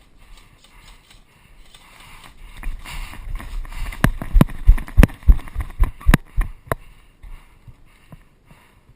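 A run of irregular sharp knocks and clatter, about nine hard hits with deep thumps over some three seconds, after a rising rustle.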